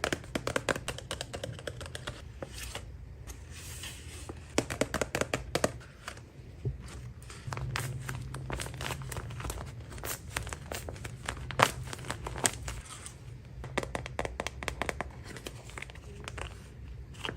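Paper crinkling and rustling in the hands, with many sharp crackles and some tearing, as a handmade paper blind bag is handled and opened.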